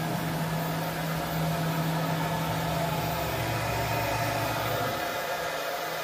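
Industrial machine running with a steady hum. A deeper part of the hum stops about five seconds in.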